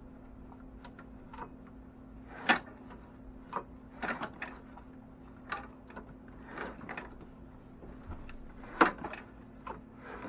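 Irregular clicks and knocks from a lawnmower engine being turned over by hand, stiff from water in its oil and starting to loosen up, with two louder knocks. A steady low hum from a house heater sits underneath.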